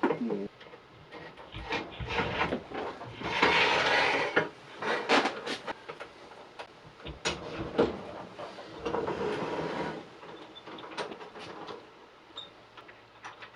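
Parts of a wood lathe's tool rest assembly being handled and fitted: scattered knocks and clicks, with a longer stretch of rubbing about three seconds in and another about nine seconds in.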